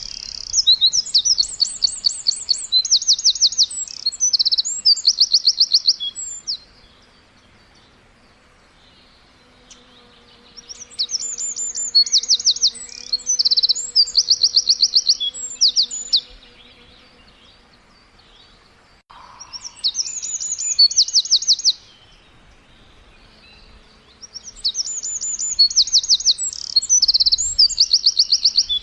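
Songbird singing in bouts of rapid, high-pitched chirps, each bout lasting a few seconds, with quiet pauses between them.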